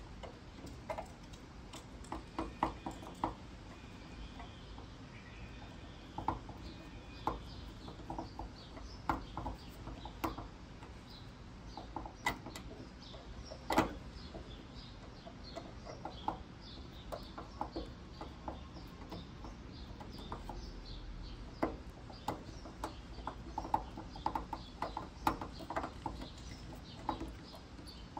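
Small metallic clicks and taps of a screwdriver working a tiny screw into an MG TD fuel cap's trigger-release latch. The clicks come irregularly, a few a second in bunches, with a couple of sharper ones about halfway through.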